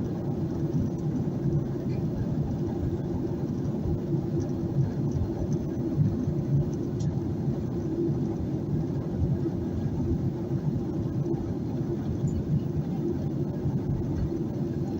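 Cabin noise of a Boeing 737-800 in flight: a steady low drone from its CFM56-7B engines and the airflow, heard inside the cabin from a rear economy window seat.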